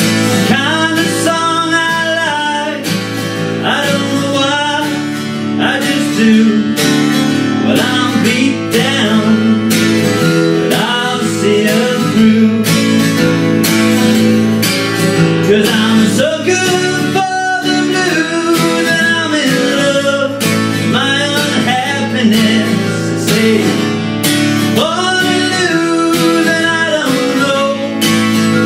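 Strummed twelve-string acoustic guitar playing a country-blues song, with a bending lead melody line over the chords.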